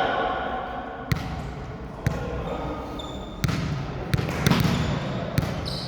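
A volleyball striking hands and the court floor: about half a dozen sharp smacks, the first two about a second apart, then closer together, over a low background of voices.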